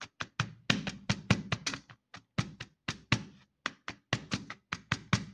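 Rapid repeated tapping, about four to five taps a second, as the bottom of a measuring cup tamps buttered biscuit crumbs down into a baking pan to firm up a cheesecake base.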